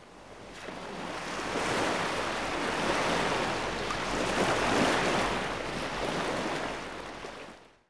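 Intro sound effect: a whoosh of noise, like wind or surf, that swells up over the first couple of seconds, holds, and fades away near the end.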